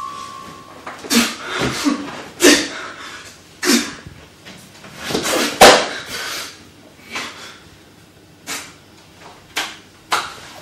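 A frightened man's ragged gasping breaths, coming irregularly about once a second and growing fainter, with one louder thump about five and a half seconds in.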